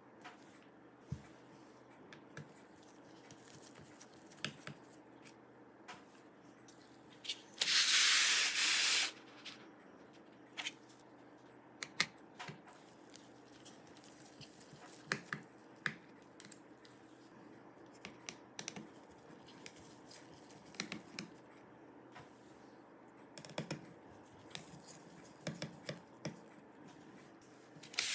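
Precision screwdriver working the battery mounting screws in a laptop's plastic and metal chassis: scattered light clicks and scrapes of the tip in the screw heads. About eight seconds in, a louder rushing rasp lasts about a second and a half.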